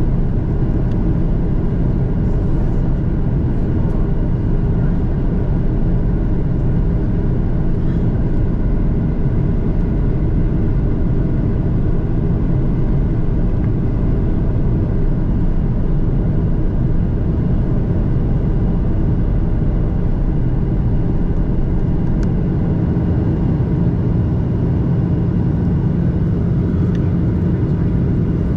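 Boeing 737-800 main-cabin noise heard from a window seat: a steady rumble of the CFM56-7B engines and rushing air, with several faint steady whining tones above it.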